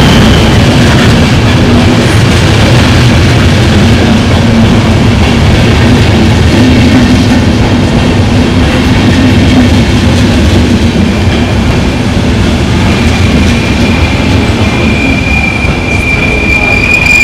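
Locomotive-hauled passenger train rolling past close to the platform: a loud, steady rumble of coach wheels on the rails. A thin, high wheel squeal rises out of it in the last few seconds.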